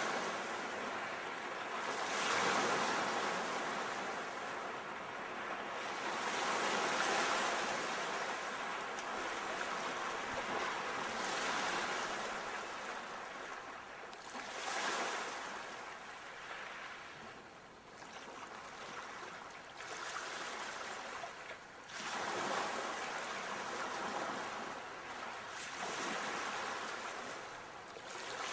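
Ocean surf: waves breaking and washing up the shore with no music, swelling and falling back in uneven surges every few seconds.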